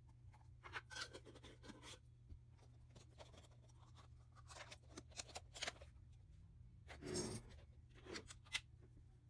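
Faint clicks, taps and scrapes of hands handling slime and its containers: a glass jar, stretched clear slime, then a plastic spoon in a bowl of red slime mixture. One longer scrape comes about seven seconds in.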